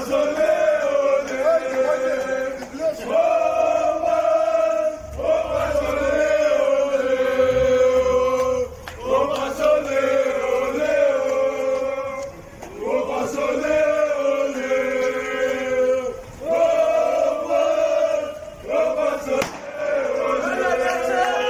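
Group of male football supporters chanting a song in unison, in sung phrases of three or four seconds with short breaks between them.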